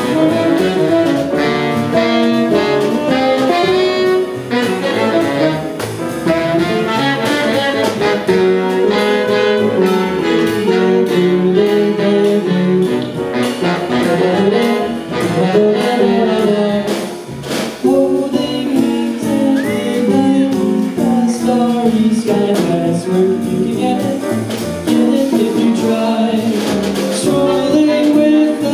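Small jazz band playing with tenor and baritone saxophones carrying the line over piano, guitar, upright bass and drums.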